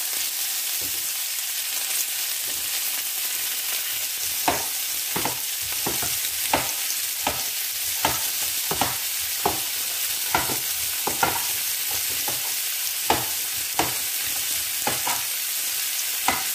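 Onions and green peppers sizzling in oil in a frying pan, a steady hiss. From about four seconds in, a knife knocks on a cutting board at a steady pace as a zucchini is sliced.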